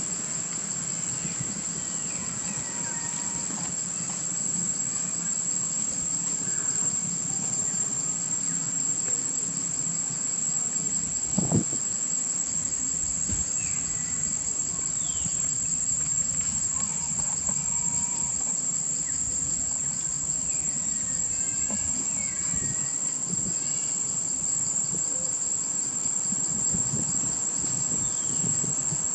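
Steady high-pitched drone of insects, with faint scattered short chirps and a single knock about eleven seconds in.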